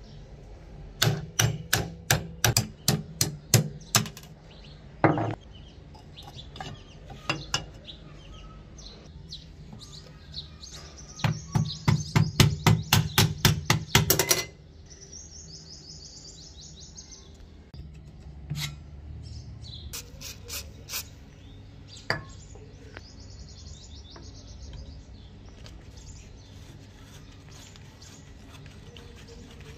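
Hammer striking a steel pin punch, driving pins out of a rusty machine gun's receiver: two quick runs of sharp metallic taps, about four a second, then a few single knocks. Birds chirp between the runs.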